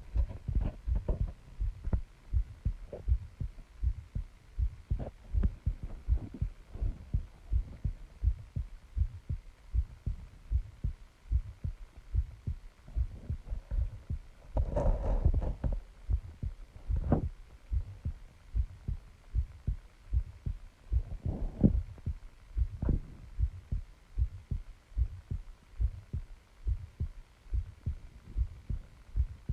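A person's heartbeat picked up close against the body: a steady rhythm of low, dull thumps. About halfway through, a brief louder rush rises over the beats.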